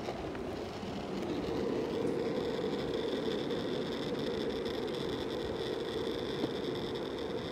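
Longboard wheels rolling on an asphalt path, a steady rumble, with a steady high whine coming in about two seconds in.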